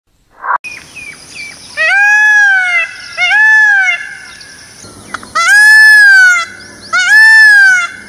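Male Indian peafowl (peacock) calling: four loud calls, each about a second long, rising then falling in pitch, in two pairs. A faint steady high whine and light chirping run behind them.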